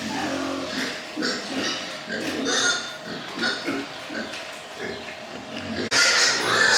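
Pigs grunting and squealing, many short calls overlapping. About six seconds in the sound turns suddenly louder and harsher.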